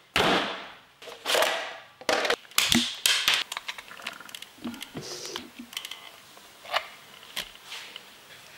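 A whooshing swish, then a run of light clicks and taps of hands handling an electric RC car's plastic chassis around its motor and pinion gear, thinning out to scattered small ticks.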